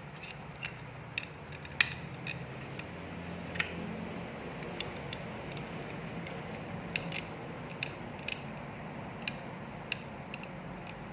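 Light clicks and taps at irregular intervals from small parts being handled during a soldering station repair, over a steady low hum.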